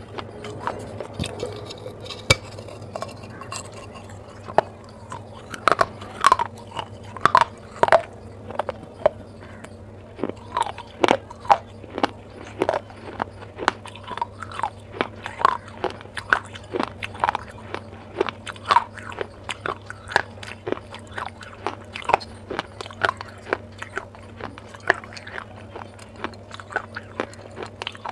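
Close-miked biting and crunching of a clay pot's rim, with chewing of the pieces: a dense run of sharp crunches that grows more frequent about five seconds in. A faint steady low hum runs underneath.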